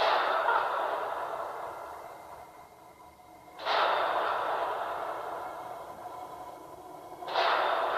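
A person's heavy breathing, three noisy breaths about three and a half seconds apart, each starting suddenly and fading slowly.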